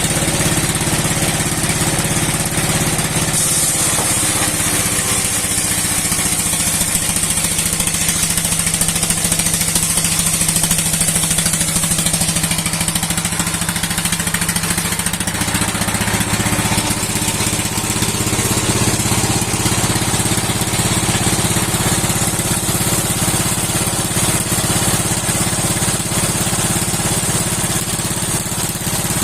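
A 60-year-old engine running steadily, driving a spinning steel wood-splitting saw. Its note shifts in pitch about 3 seconds in and again about halfway through, over a steady high hiss.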